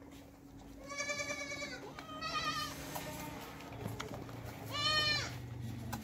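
Goats bleating three times, each call wavering: a longer one about a second in, a shorter, higher one just after two seconds, and a last one about five seconds in.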